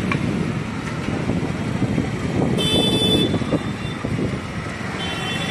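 Road traffic running steadily, with a high horn sounding briefly about halfway through and another horn starting near the end.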